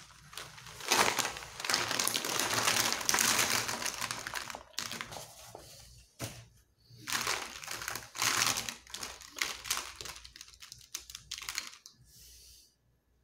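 Dozens of plastic Touchfive twin-tip markers clattering against one another as they are tipped out of a fabric pouch and spread by hand, with cloth rustling. The rattling clicks come in two busy spells, one starting about a second in and one about halfway.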